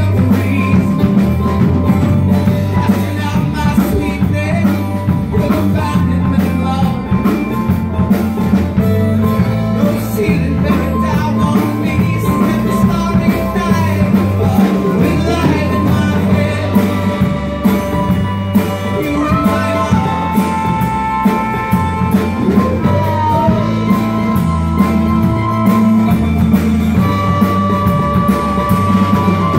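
Live rock band playing: acoustic guitar, electric bass, drums and keyboard under a man's lead vocal, with a harmonica playing long held notes near the end.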